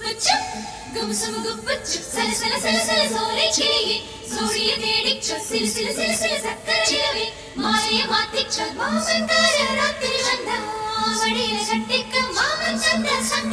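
A Tamil film song, with a singer over instruments and a steady bass line, played back through a car's three-way active speaker system as an audio demonstration.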